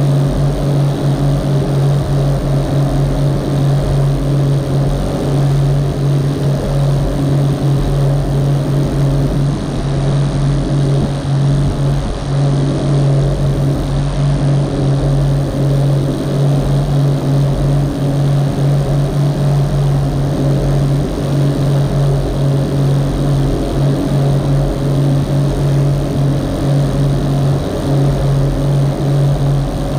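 Rigid inflatable boat's engine running steadily at cruising speed, a constant low drone, over the rush of water along the hull.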